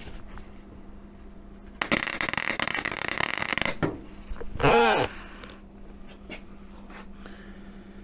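Gasless flux-cored MIG welder arc crackling in one burst of about two seconds as it lays a short weld on sheet-metal bodywork. About a second after it stops comes a short, loud meow that rises and falls.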